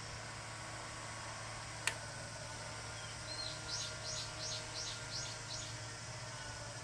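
A small bird singing one short phrase: a brief high note, then about six quick, repeated, falling notes. A single sharp click comes just before it, over a steady low hum.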